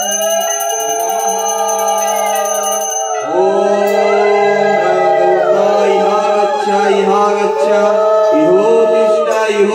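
A man chanting a Sanskrit mantra in long, drawn-out melodic notes into a microphone, with a small puja hand bell ringing rapidly until about three seconds in.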